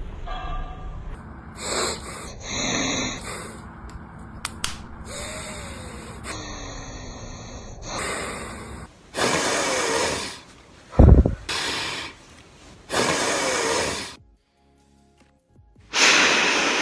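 A person breathing loudly and noisily through the nose: a series of rasping breaths of about a second each, with a short low thump a little past the middle.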